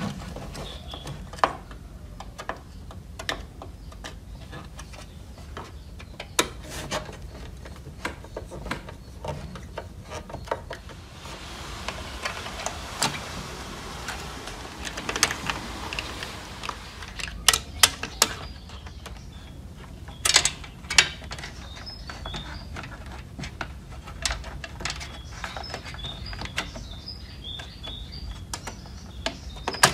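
Hands taking apart a DVD player: a screwdriver turning screws, then scattered clicks and knocks of the steel chassis, plastic front panel and circuit board being handled. A stretch of rubbing and scraping comes in the middle, and a few sharper knocks follow.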